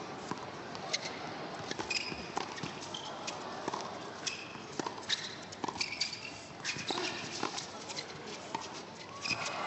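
Tennis doubles rally on an indoor hard court: a ball being hit by rackets and bouncing, sharp pocks at uneven intervals, with short high squeaks of shoes on the court several times.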